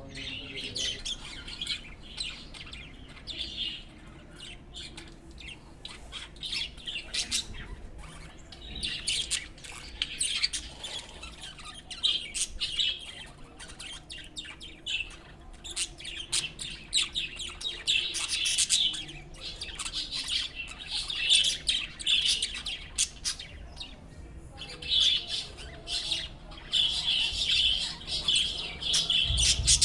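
Budgerigars chattering and chirping, a busy run of short high warbles and squawks that comes in bouts, thickest in the second half.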